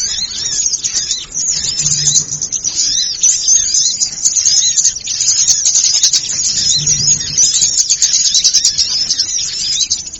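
Dense, overlapping chirping and twittering of many small birds calling at once, a bird-lure recording of a noisy flock, with a short low hum twice.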